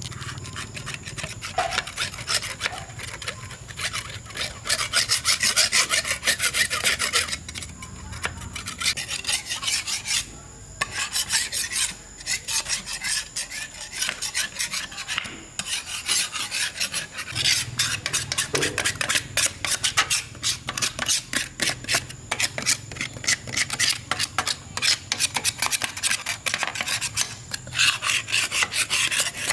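Rapid back-and-forth hand abrasion, as with a file, sandpaper or brush worked over a rusty motorcycle part, going in quick strokes with short breaks.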